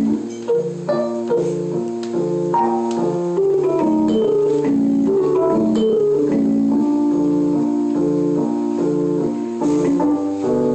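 A live rock band plays an instrumental passage led by an electric keyboard. The keyboard repeats a riff of alternating sustained chords, changing about every half second, over light percussion.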